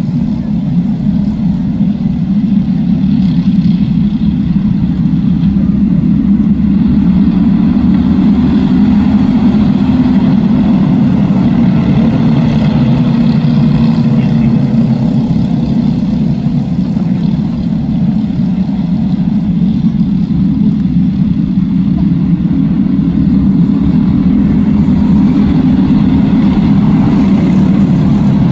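A pack of racing karts with small single-cylinder engines running steadily as they race by, the drone holding throughout with a slight dip near the middle.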